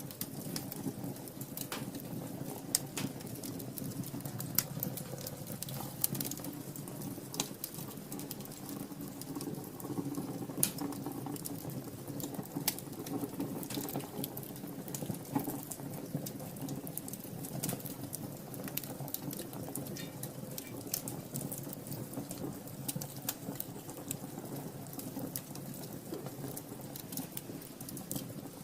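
Wood fire in a fireplace crackling, with frequent sharp, irregular pops over a steady low rush of burning.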